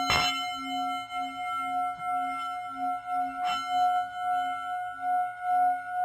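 Singing bowl ringing with a sustained, wavering tone that pulses about twice a second. It is struck near the start and again about three and a half seconds in.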